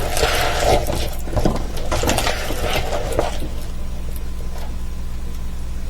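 Rustling and crinkling of large diamond painting canvases being handled, most of it in the first three seconds, over a steady low electrical hum.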